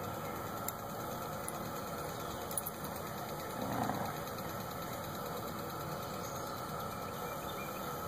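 Steady drone of a cicada chorus, with a brief louder noise about halfway through as the dogs nose at the ground.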